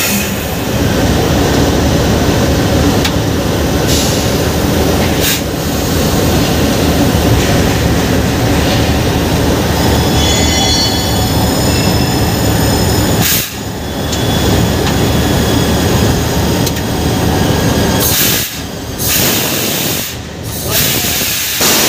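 Locomotive cab noise: a loud, steady mechanical rumble with hiss, with faint high squealing tones about ten seconds in and a few brief drops in level near the end.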